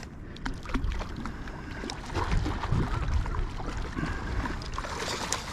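Wind buffeting the microphone over irregular splashing and sloshing of shallow water, where a hooked Australian salmon is thrashing at the surface on a fly line.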